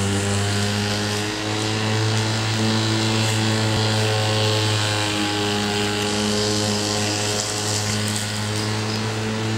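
A steady low mechanical drone: a motor or engine running at a constant speed, with a strong low hum and a stack of overtones that waver slightly.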